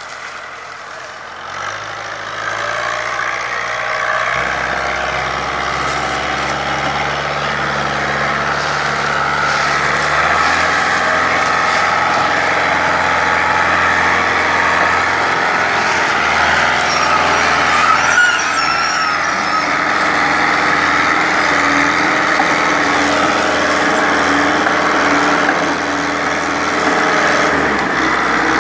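Fiat 640 tractor's diesel engine labouring under a heavy load as it pulls a trolley of sugarcane. The engine gets louder over the first few seconds, then holds a steady, working pitch.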